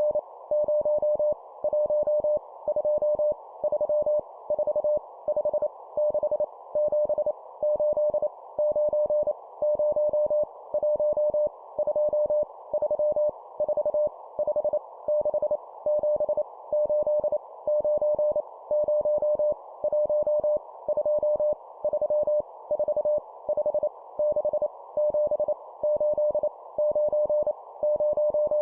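Morse code (CW) tone sending numbers at 25 words per minute: a single steady pitch keyed on and off in quick groups, over a constant hiss around the tone.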